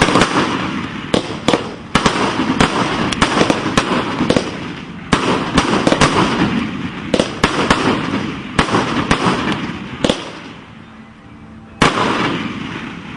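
Fireworks cake going off: a rapid string of sharp bangs and crackling in several volleys, easing off about ten seconds in before one more volley near the end.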